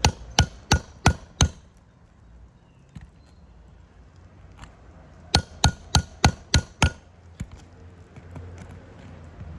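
Shingle hammer striking a nail puller to drive it under a roofing nail: five quick sharp strikes, about three a second, then a pause of about four seconds and six more strikes.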